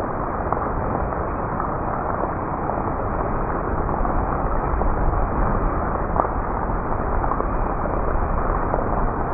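Thunderstorm: steady rain hiss with scattered drop ticks, under a low rumble of thunder that grows stronger about halfway through.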